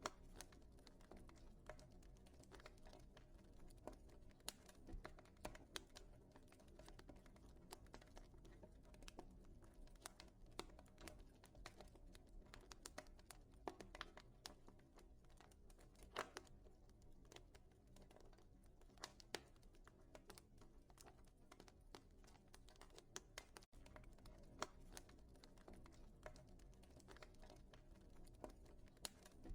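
Wood fire crackling in a fireplace: faint, irregular pops and snaps over a low steady background.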